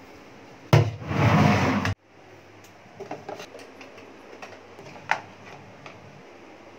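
Rubbing and handling noise on the phone microphone: a knock about a second in, then a loud rush that stops abruptly. Scattered small plastic clicks and taps follow as a pump bottle dispenses into a plastic cup and a toothpaste tube is handled, with a sharper click near the end.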